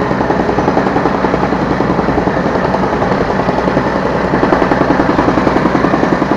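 Yanmar B3 Sigma 3-ton mini excavator's diesel engine running, heard from the operator's seat, with a fast even beat.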